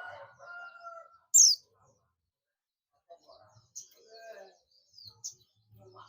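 White-eye (pleci, Zosterops buxtoni) calling: thin, high chirps, the loudest a quick downward-sweeping note about a second and a half in, with more short high chirps in the second half.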